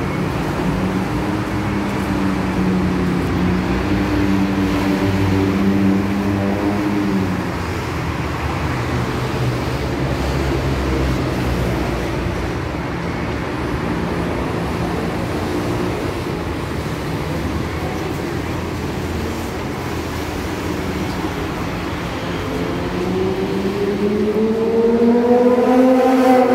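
Busy city road traffic heard from above: a steady engine drone for the first several seconds over the general rush of vehicles. Near the end a rising motor whine climbs steadily in pitch.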